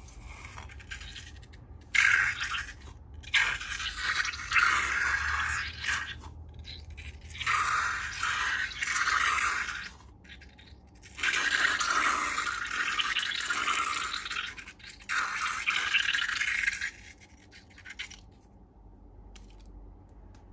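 Slime being worked by hand, making scraping, squishing noise in several bursts of one to a few seconds each, the longest starting about eleven seconds in, then fading off near the end.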